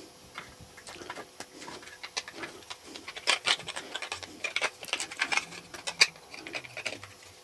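Small irregular clicks and rustles of a 9-volt battery being snapped onto its connector and handled into the hard plastic handle of an infrared thermometer, busiest in the second half, with one sharper click about six seconds in.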